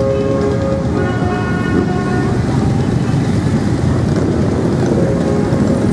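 Many motorcycles riding off together, a dense rumble of engines running at once. Horns toot near the start and again from about one to two and a half seconds in.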